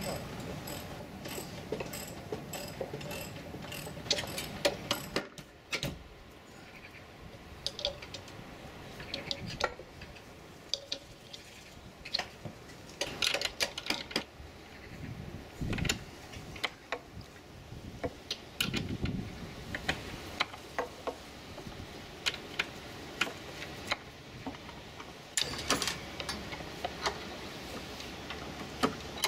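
Hand screwdriver working screws in the wooden roof framing of a small garden gazebo: many short, sharp clicks and ticks, coming in a quicker, more even run at the start and then in irregular clusters.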